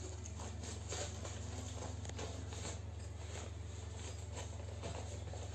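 Soft rustling and handling of fabric pouches and gear as they are packed into a sports bag, with small scattered knocks, over a steady low hum.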